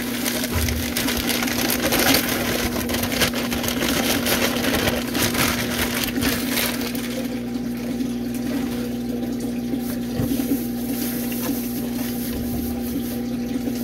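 Dry timothy hay crackling and rustling as it is shaken out of its plastic bag, with the bag crinkling, for about the first half; then softer rustling as the hay is spread by hand. A steady low hum runs underneath.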